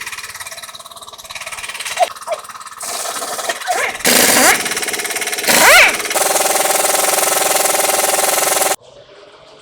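Vehicle engine running, with scattered knocks at first, then rising twice in pitch as it revs and holding a steady drone before it cuts off abruptly near the end.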